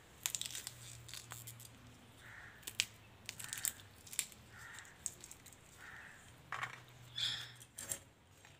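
Fresh green pea pods being split open by hand: a scattering of crisp snaps and small clicks.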